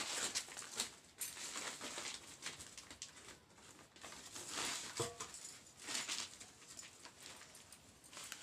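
Paper sack rustling and crinkling as it is handled and shifted, in a run of irregular swells.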